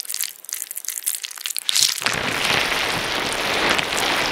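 Crackling, crunching noise, scattered crackles at first, then about two seconds in turning into a dense, louder crackle like heavy rain.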